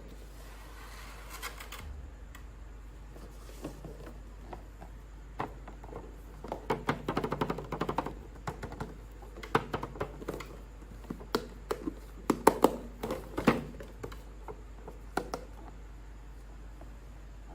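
Hands unboxing toy action figures: a soft rustle of packaging, then irregular runs of sharp clicks and taps, coming in two dense bursts.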